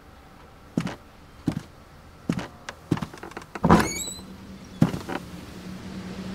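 Footsteps crossing a room, four steps, then a door opening with a loud knock of the latch and a brief squeaking hinge, and one more knock a second later.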